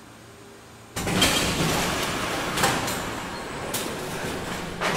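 Mobile launcher swing arms releasing from the Space Launch System rocket and swinging away: a sudden loud rush of noise starts about a second in, with three sharp knocks in it, then slowly eases off.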